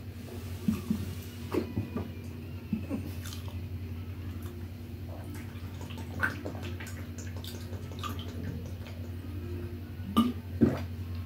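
Mouth noises of eating and drinking: chewing and smacking while eating rice by hand, then drinking from a plastic bottle. Scattered short clicks, with two sharper ones near the end, over a steady low hum.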